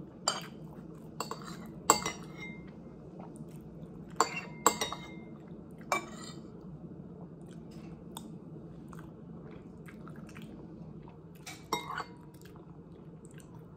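Metal spoon scraping and clinking against a ceramic plate: scattered sharp clinks with brief ringing, the loudest about two seconds in, more around four to six seconds and a pair near the end. A low steady hum runs underneath.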